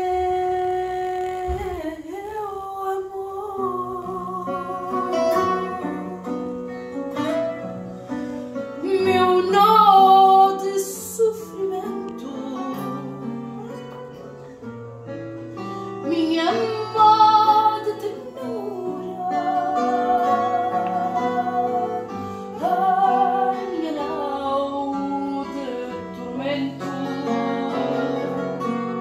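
A woman singing fado with a wavering, held voice, accompanied by a finger-plucked classical guitar.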